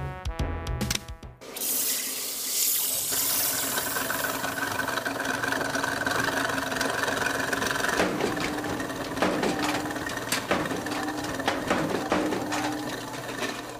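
Washing machine starting up: a rush of water filling it, then a steady whirring hum with scattered knocks and clunks as it runs, fading near the end.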